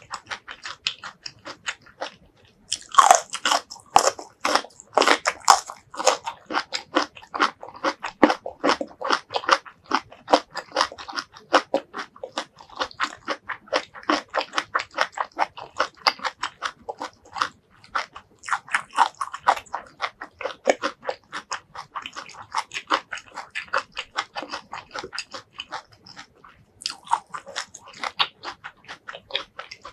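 Close-miked biting and chewing of crisp stir-fried asparagus: a rapid run of crunches, loudest just after a bite about three seconds in. Another sharp bite comes near the end.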